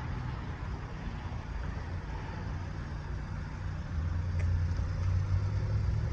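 A motor vehicle's engine running with a steady low hum, growing louder about four seconds in.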